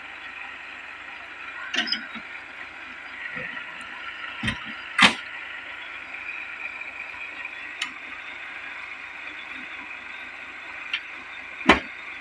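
Several sharp metal knocks and clanks on a Hitachi crawler excavator parked on a lowbed trailer, the loudest about five seconds in and another near the end, over a steady background hiss.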